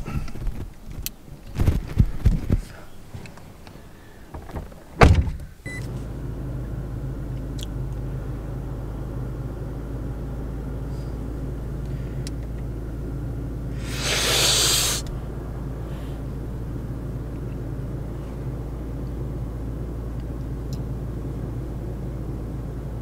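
Toyota Tacoma pickup engine idling, heard inside the cab as a steady low hum. It sets in about six seconds in, after a few seconds of knocks and handling noise. Past the middle there is a brief rush of noise lasting about a second.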